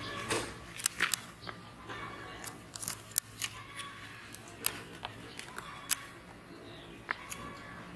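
About a dozen sharp snips and clicks at irregular intervals, from okra pods being cut from the plants by hand during harvest.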